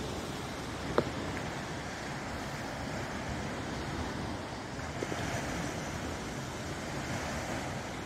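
Small waves washing onto a sandy Lake Michigan beach, with a steady rush of wind on the microphone. A single sharp click about a second in.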